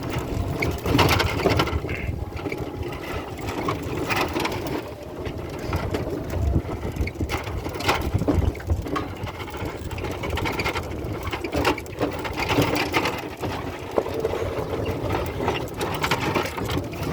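Golf cart riding over rough ground: an unsteady rumble and rattle of the cart's body, with a knock now and then as it goes over bumps.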